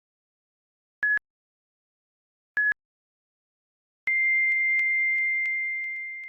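Electronic countdown beeps: two short high beeps a second and a half apart, then a longer, slightly higher beep that fades away.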